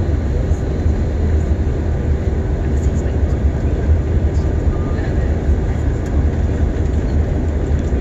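Steady cabin noise of a passenger aircraft descending to land: a deep, even rumble of engines and airflow heard from inside the cabin.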